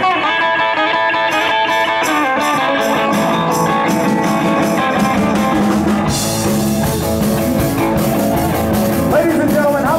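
Live band playing: electric and acoustic guitars with a drum kit, a steady cymbal beat coming in about a second and a half in and the cymbals opening up much louder about six seconds in.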